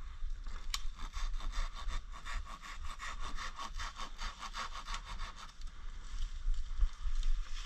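A small hand saw cutting through a tree branch in fast, even strokes, about five a second, which stop about five and a half seconds in. A sharp click comes just before the sawing starts.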